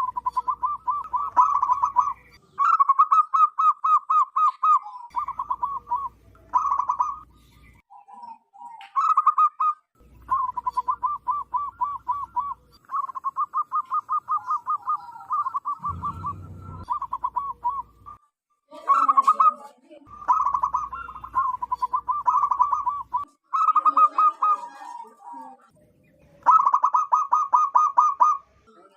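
Zebra doves (perkutut) singing: phrase after phrase of quick, stuttering pulsed coos, each lasting a second or two with short pauses between, overlapping in places as calls run together.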